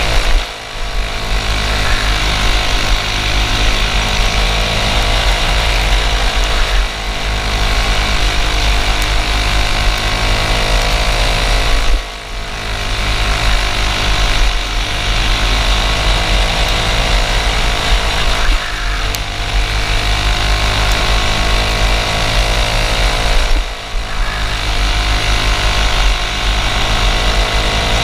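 Racing kart engine heard from on board at racing speed, its pitch climbing steadily along the straights and dropping sharply about five times as the throttle is lifted for corners.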